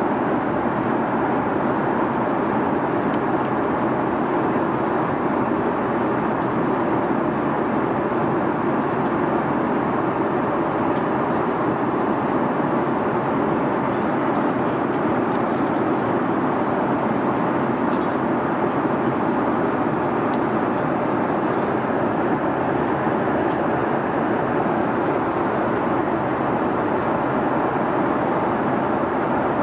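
Steady cabin noise of an Airbus A330-300 in flight: an even, unchanging rush of airflow and engine noise.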